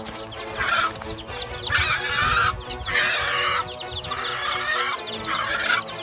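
A mother hen squawking in four harsh, agitated cries of under a second each, alarm calls as she defends her young. Background music with steady tones runs underneath.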